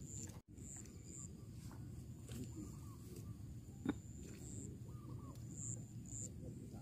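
Faint open-air ambience with a low rumble and a few short, high bird chirps scattered through it, and one sharp click about four seconds in.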